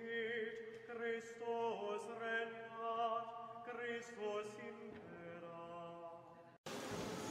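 A chanted vocal melody sung over a steady held drone, fading a little and then cutting off abruptly about six and a half seconds in. A steady hiss follows.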